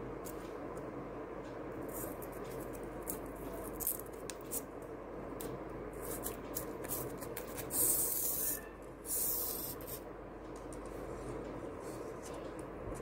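Hands handling small craft materials on a wooden tabletop: soft rubbing with scattered light clicks and taps. Two short, louder bursts of rustling come about eight and nine seconds in, over a steady low background hiss.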